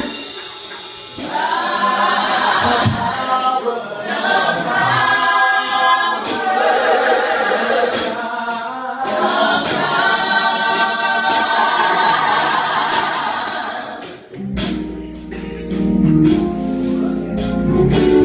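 Mixed gospel choir singing in harmony, over a steady beat of sharp percussive hits. About fourteen seconds in, the voices fall away and low sustained instrumental notes take over.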